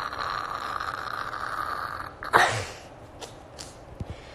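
A woman's drawn-out, breathy, strained vocal sound lasting about two seconds. It cuts off, and a sudden short burst of breath follows. A few faint clicks come after.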